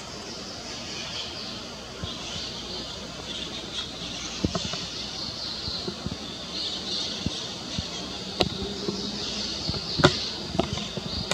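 Many small birds chirping together in a dense, continuous chatter, with a few sharp cracks about four, eight and ten seconds in.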